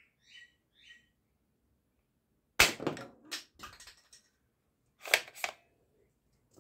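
A plastic toy dart blaster being worked by hand: two loud sharp snaps about two and a half seconds apart, each followed by a few smaller plastic clicks, with faint squeaks near the start.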